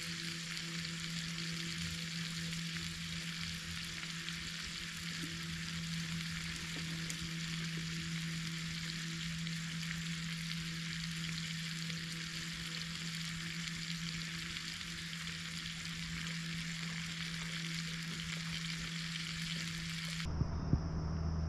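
Bacon frying in a skillet over a campfire, a steady hissing sizzle, with a steady low hum underneath.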